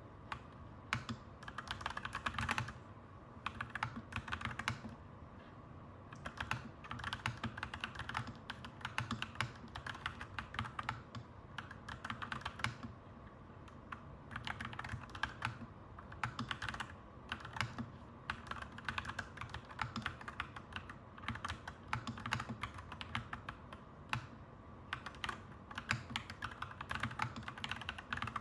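Clacky mechanical keyboard being typed on in quick bursts with short pauses between them, over a steady low background hum.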